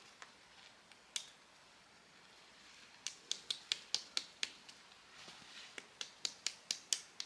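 Tent pegs being hammered into icy ground: two runs of quick, sharp taps, about four a second, one starting about three seconds in and another near the end.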